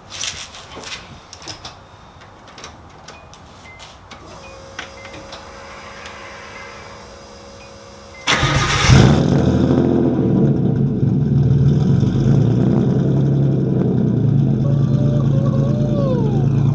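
A few clicks and knocks, then about eight seconds in the turbocharged Nissan 240SX's engine cranks and catches on a cold start and settles into a steady idle.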